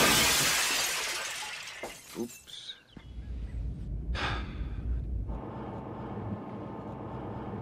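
A loud shattering crash that fades away over about two seconds. Later comes a short whoosh about four seconds in, then a steady low hum.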